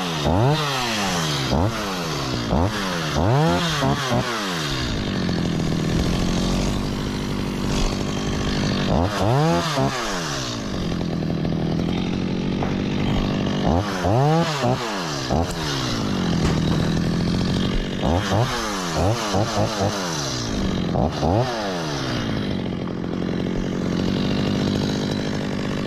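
Stihl two-stroke chainsaw idling and revved in short bursts over and over, each rev rising and falling quickly back to idle, as it trims the crown of a coconut palm. The bursts come in clusters, with stretches of plain idle between them.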